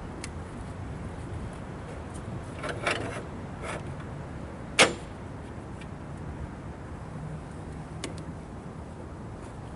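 A few scattered knocks, then one sharp bang about five seconds in and a couple of light clicks near the end, over a faint steady low hum.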